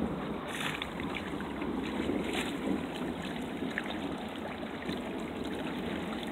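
Water rushing and lapping along the hull of a DS16 sailboat under sail, with wind buffeting the microphone. A couple of brief sharper splashes stand out about half a second and two and a half seconds in.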